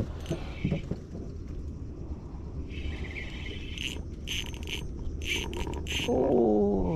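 Insects chirping in short repeated bursts over a low steady hum. Near the end comes a louder single tone that glides steadily downward.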